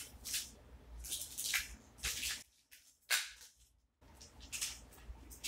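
Wrapping rustling in a string of short scratchy bursts as a drone controller is unwrapped and lifted out of a foam-lined hard case. The rustling is broken by a brief, near-silent gap about halfway.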